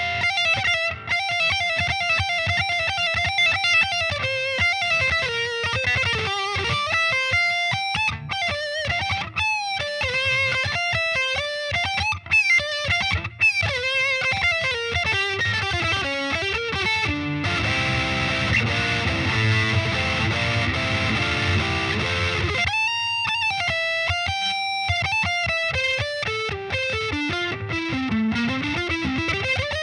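Solar A1.7D LTD electric guitar played through a Peavey VYPYR 60 W combo amp. It plays single-note lead lines with wavering, bent notes, and about two-thirds of the way through there is a denser, fuller stretch of chords lasting some five seconds before single-note lines return.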